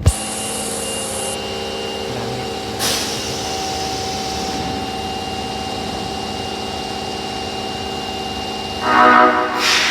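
Osaka Metro Tanimachi Line train, car 22615, standing with a steady hum from its electrical equipment and a short hiss about three seconds in. Near the end its horn sounds for about a second, the abnormal-sounding horn this car is known for.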